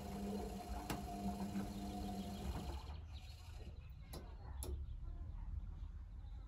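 Atlant 45Y82 front-loading washing machine in its rinse cycle, its drum motor humming as the drum tumbles wet cotton laundry. The hum stops a little under three seconds in, leaving a low rumble and a few sharp clicks.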